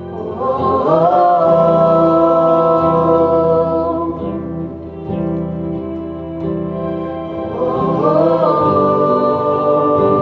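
Worship music: sustained keyboard chords under a voice that slides up into long held notes, twice.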